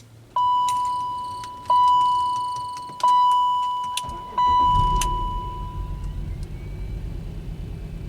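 Four dashboard warning chimes from a BMW X5, about a second and a half apart, each ringing and fading, with small key clicks. About four seconds in, the engine cranks and catches, then runs with a low uneven rumble: it is misfiring on a cold first start.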